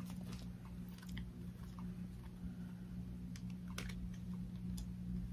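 Faint, scattered light clicks and taps from a small cardboard makeup-palette box being handled and opened, over a steady low hum.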